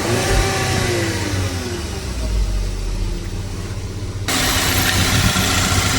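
Volkswagen Tiguan's 1.4-litre petrol engine running at idle, with a falling whine over the first two seconds. A little past four seconds in the sound turns suddenly brighter and hissier.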